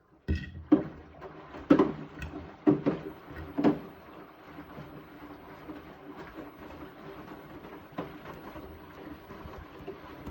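Beko WTK74011W washing machine starting a wash cycle: four or five knocks about a second apart, then a steady running noise with a single click near the end.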